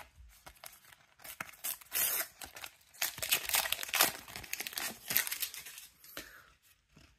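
A Panini sticker packet's wrapper being torn open and crinkled by hand, in several spells of crackling that ease off near the end.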